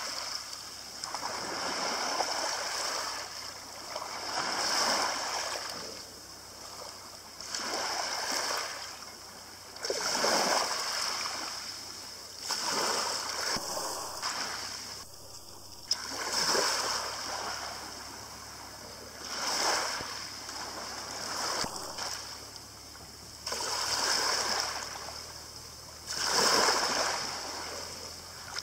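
Small waves lapping on a shingle beach. Each wave washes up over the pebbles and drains back, making a swell of water noise about every two and a half to three seconds.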